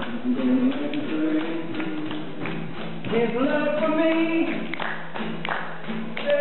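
A man singing a gospel song to his own strummed acoustic guitar, with the audience clapping along.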